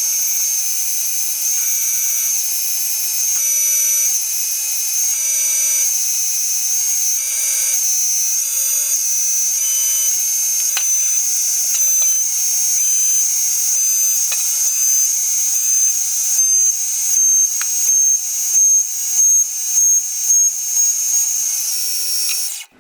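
CNC metal lathe taking a turning cut: a steady high-pitched whine with cutting noise. In the last few seconds it pulses about one and a half times a second, then stops suddenly.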